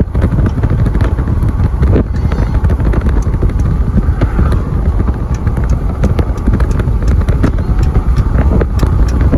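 Loud, steady rumble with wind buffeting the microphone, recorded from a vehicle moving along a road beside a freight train of autorack cars, with scattered small clicks and rattles through it.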